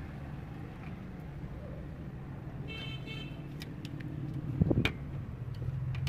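Steady low hum of road traffic, with a short car-horn toot about three seconds in. A few light clicks and one thump near the end come from the screwdriver and hands working the plastic hose adapter on the tap.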